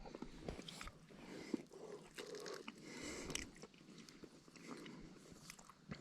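A person chewing with the mouth close to the microphone, with irregular soft crunches from crispy fried food.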